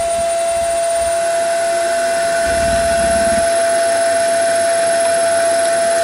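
Three-phase induction motor running on a Delta VFD-E variable frequency drive set to about 14.5 Hz, giving a steady high-pitched electrical whine.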